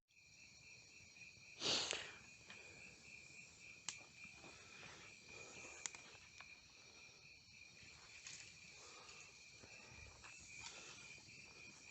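Faint, steady, finely pulsing chirring of insects such as crickets. About two seconds in there is a short burst of noise, and a few small ticks follow.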